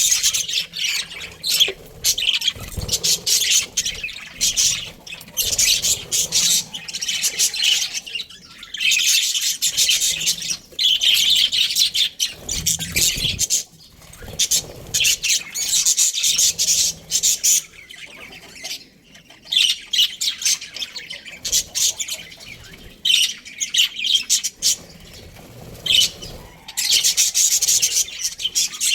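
Budgerigars chattering and chirping in fast, shrill bouts of a second or two, with brief lulls between.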